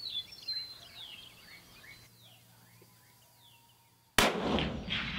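Coyotes yipping and howling, a chorus of quick rising and falling calls that fades out over the first two seconds. About four seconds in, a single shot from an M24 bolt-action sniper rifle in 7.62×51 mm cracks out, the loudest sound, with a tail after it.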